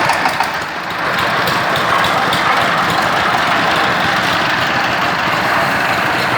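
An engine running steadily, with a brief dip in level about a second in.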